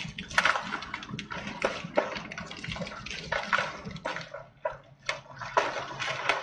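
A debris flow of mud, water and boulders moving downslope: rushing, sloshing water with frequent irregular knocks and clacks of rocks tumbling against each other.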